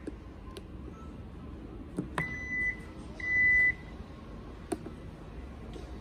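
Warning chime of a 2021 Hyundai Santa Fe's power tailgate as the motorised tailgate starts to close: two short high beeps about a second apart, the second louder. A few light clicks come before and after them.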